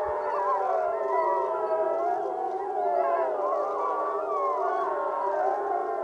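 A pack of gray wolves howling together in chorus: many overlapping voices at different pitches, each wavering and sliding up and down, with no break.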